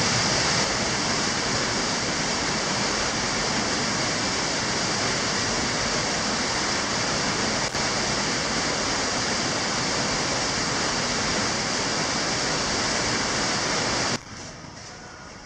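Underground waterfall in a cave: water pouring and splashing in a loud, steady rush. It cuts off abruptly near the end, leaving a much quieter background.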